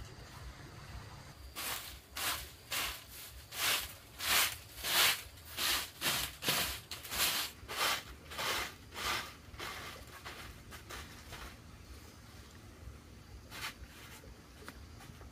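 Hand broom sweeping a packed-earth floor in quick swishing strokes, about two a second, that fade out after about ten seconds, with one more brush near the end.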